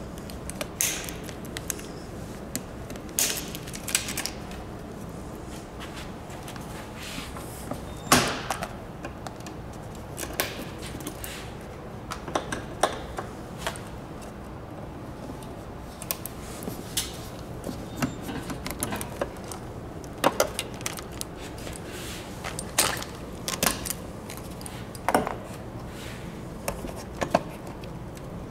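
Scattered clicks, snaps and knocks of hard plastic seat trim and fasteners being worked by hand and with pliers, at an irregular pace with one louder knock about eight seconds in, over a steady low background hum.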